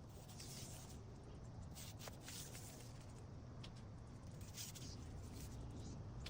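Faint rustling and scratching of adhesive hook-and-loop (Velcro) tape being handled and pressed onto a door frame, in short strokes a few times, with a light click about two seconds in, over a low steady hum.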